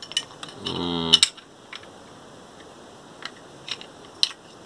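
Scattered sharp clicks and knocks of a motorcycle phone holder's hard plastic ball-joint mount being turned over and fitted together by hand, with a brief vocal sound about a second in.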